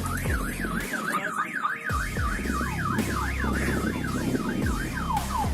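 Electronic alarm warbling, its tone sweeping up and down about three times a second, then changing to quicker falling chirps near the end, over a steady deep low hum.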